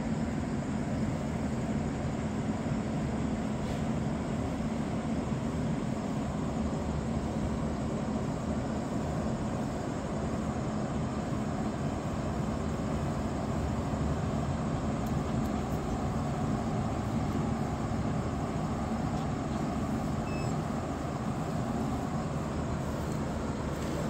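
Steady low machine drone with a constant hum, unchanging throughout.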